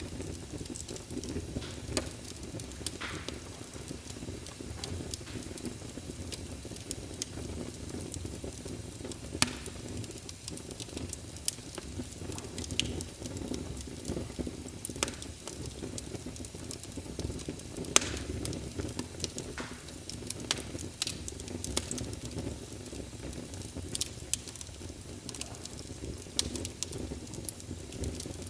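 Fire burning, with a steady low rumble and irregular sharp crackles and pops; the loudest snaps come about nine and eighteen seconds in.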